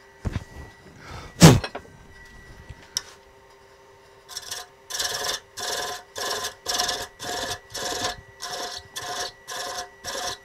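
A hand thread chaser cutting a thread on a small spinning wooden spigot on a wood lathe: about a dozen short, even cutting strokes, roughly two a second, starting about four seconds in, over the lathe's steady hum. Near the start come two knocks, the second sharp and loud.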